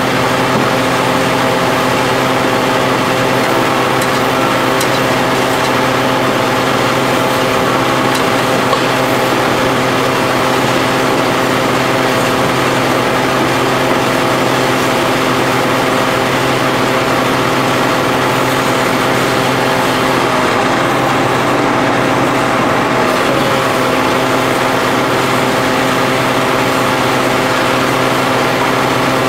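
Hydraulic power pack and pump running with a steady even drone, driving an H-beam hydraulic pile extractor's lifting cylinders as they pull a steel pile out of the ground under load.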